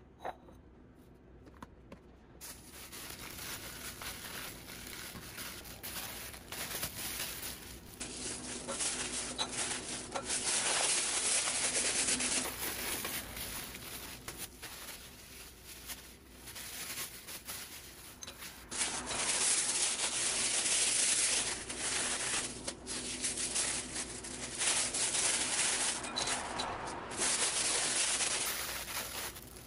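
Plastic bags rustling and shelled nuts (walnuts, pecans and macadamias) being tipped and rattling into a glass bowl. The sound comes in several stretches with brief lulls between them.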